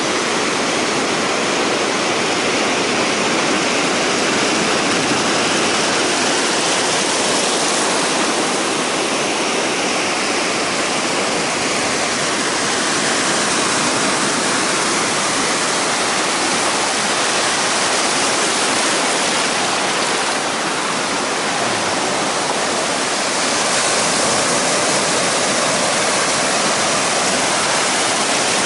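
Shallow surf washing in over a sandy beach: a steady rush of breaking waves and fizzing foam.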